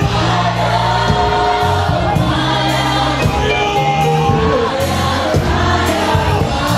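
Gospel music: a group of voices singing over instruments, with long low bass notes that shift every second or so.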